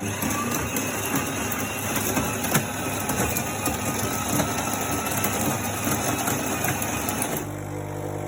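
Krups EA8178 bean-to-cup coffee machine's built-in grinder grinding coffee beans for a shot, a rough crackling whir that starts suddenly and stops after about seven seconds. Near the end it gives way to a steadier, even hum as the machine moves on to brewing.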